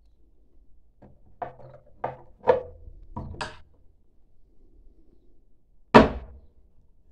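Short knocks and clacks of metal on wood and metal as the guide arm of a homemade Edge Pro-style knife sharpener is handled and set in place: about five knocks in quick succession, then one loud sharp clack near the end.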